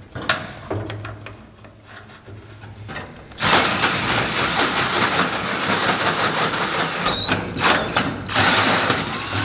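Cordless drill turning a 4-inch hole saw through the metal water pan. It starts about three and a half seconds in as a loud, continuous grinding cut, with two short breaks in the last few seconds. Before that, a few light clicks come from cutting oil being squirted with a pump oil can.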